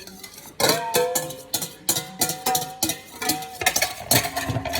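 A mixing utensil clicking and tapping against a bowl as pancake batter is stirred, with a melody of held notes running over it.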